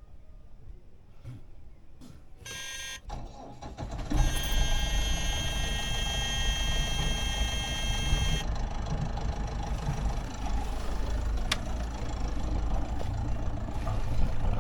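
Sailboat's auxiliary engine being started: a short high warning tone sounds about two seconds in, the engine fires about four seconds in, and it settles into a steady low running note. A high alarm tone sounds over the engine for about four seconds after it starts, then cuts off, typical of an engine panel's low-oil-pressure alarm clearing once the engine is running.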